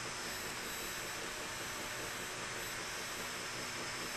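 A steady hiss with a thin, high-pitched whine above it, from a freshly repaired Videocon 15-inch CRT television running on its AV input.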